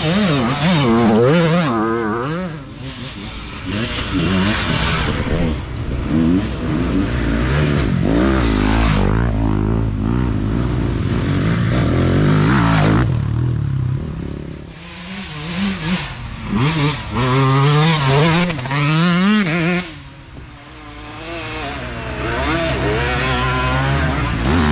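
Several dirt bikes racing past one after another, their engines revving up and easing off in rising and falling sweeps as each bike approaches and goes by. The sound drops briefly a little after halfway and again near the end before the next bike comes through.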